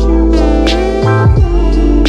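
Background music with deep sustained bass notes that slide down in pitch, over a beat of sharp drum hits.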